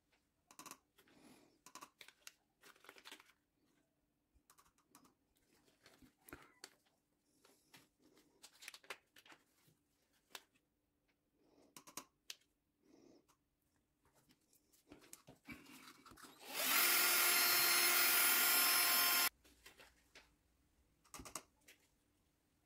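Light clicks and taps of small plastic cups and a stirrer as epoxy resin and pigment are measured and mixed. About seventeen seconds in, a small electric motor whirs steadily for nearly three seconds, then cuts off.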